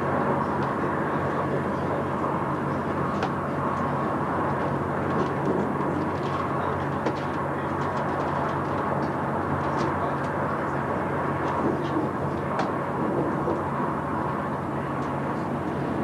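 Steady interior running noise of an ICE 1 (class 401) passenger car: an even rumble with a low hum, and scattered light clicks and rattles.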